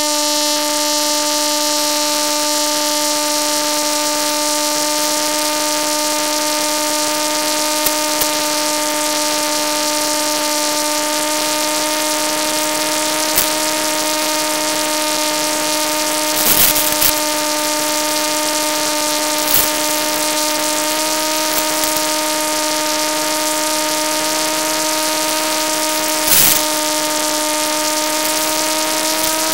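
Electric motor and propeller of a Bixler RC foam plane running at steady throttle in flight, a constant whine whose pitch rises slightly near the end, with a few brief rushes of noise.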